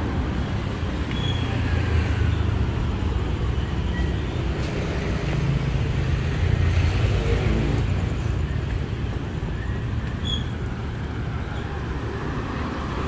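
Road traffic running past on a busy street, with louder swells as vehicles go by about two seconds and seven seconds in.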